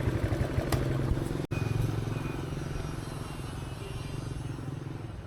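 An engine running steadily with a low hum, slowly fading after a brief break in the sound about one and a half seconds in.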